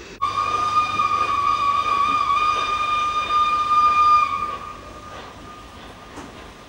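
Steam locomotive whistle: one long steady blast of about four seconds, a single tone over steam hiss, cutting in abruptly and fading out.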